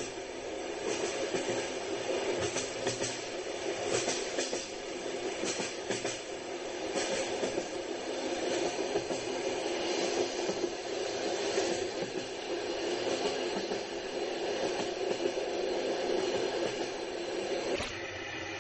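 Train wheels knocking over rail joints as the train runs along, heard as a steady rumble with scattered clicks.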